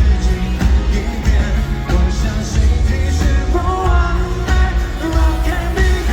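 Pop song with a singing voice over a steady driving beat.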